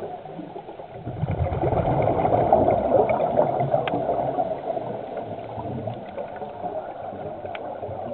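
Underwater exhaust bubbles from a scuba diver's regulator, one long exhalation swelling about a second in and fading after about four and a half seconds, over a steady underwater hiss with a few faint clicks.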